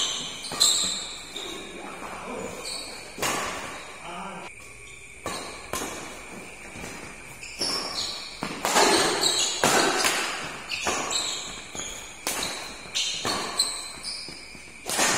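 Doubles badminton rally: rackets striking the shuttlecock in sharp cracks every second or two, with a short lull partway through, and shoes squeaking on the court between shots.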